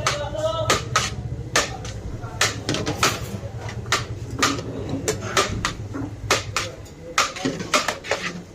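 Metal utensils clinking and knocking against pots and plates as chicken biryani is served: many sharp, irregular clinks, several a second, with voices talking underneath.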